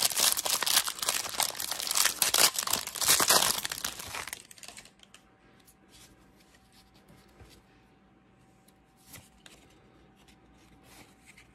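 Foil trading-card pack wrapper being torn open and crinkled for about four and a half seconds. After that it is nearly quiet, with a few faint ticks as the cards are handled.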